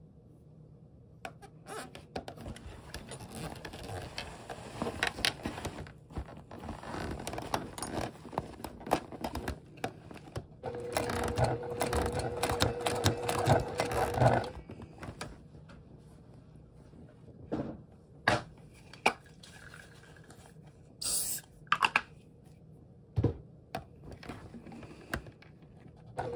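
Sewing machine stitching through thick layers of vinyl and lining in one short run of a few seconds around the middle, its motor humming steadily over the clatter of the needle. Before it, the stiff vinyl scrapes and rustles as it is handled under the presser foot, and scattered clicks and knocks follow.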